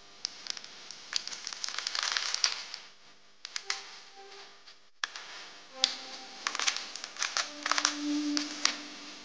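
Close crackling, clicking and tapping handling noises, with faint music underneath.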